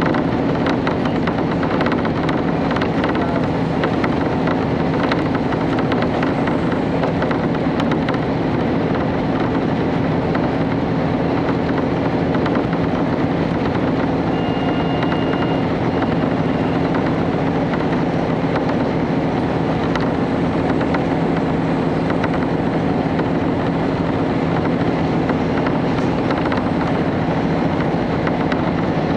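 Cabin sound of a KiHa 31 diesel railcar running along the line: a steady diesel engine drone with wheel and rail noise. A brief high-pitched tone sounds about halfway through.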